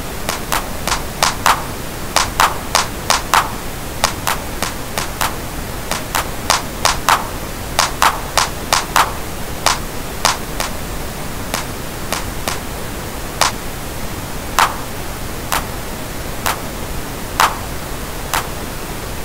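Electronic hand-clap samples from a drum pattern, played over a steady pink-noise bed. The claps come in quick runs during the first half and more sparsely after that. Their channel equalisers are being switched on and off to compare the plasticky, unequalised clap with the corrected one.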